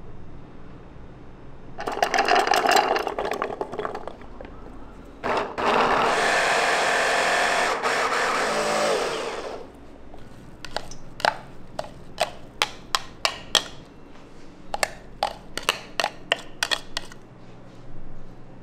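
Electric blender blending garlic sauce: a short burst, then a longer steady run of about four seconds that drops in pitch as the motor spins down. This is followed by a quick series of sharp knocks.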